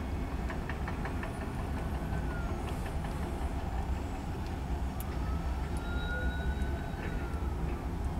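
Freight train of covered hopper cars rolling past: a steady low rumble of steel wheels on rail, with a few clicks near the start. A faint high whine rises and falls in pitch about five seconds in.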